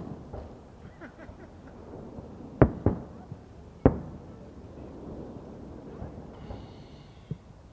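Fireworks going off: two sharp bangs close together about two and a half seconds in, another about a second later, and a fainter pop near the end, over a low background rumble.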